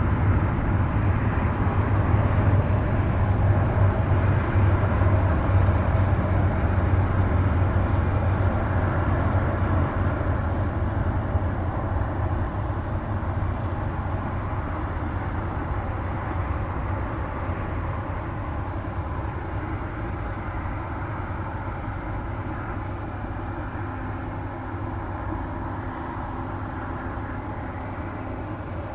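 Twin Pratt & Whitney PW1900G geared turbofans of an Embraer E195-E2 airliner running as it rolls along the runway: a steady, deep rumble that slowly fades as the jet moves away.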